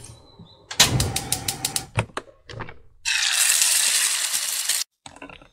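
A knife chopping quickly on a wooden cutting board, a rapid run of strokes followed by a few slower cuts. Then eggs and ham sizzling in a frying pan for nearly two seconds, cut off abruptly.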